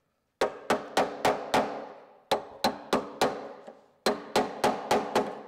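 Hammer blows on a small chisel driven into a sheet-steel car chassis rail, in three quick runs of four or five strikes about three a second, each with a short metallic ring. The chisel is cutting slices across a spot weld to break it free.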